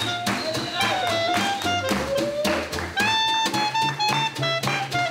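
Small unamplified swing combo playing an up-tempo jazz number. A snare drum keeps an even beat under a walking double bass and a strummed small guitar, and a clarinet carries the melody.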